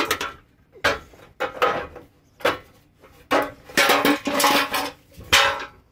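Steel front crash bar (bumper reinforcement) of a 2001 Pontiac Firebird clanking and scraping against the frame rails as it is worked loose by hand and pulled off, its mounting nuts already removed. A run of sharp metal knocks and rattles, some ringing briefly, with the longest stretch of clatter in the middle.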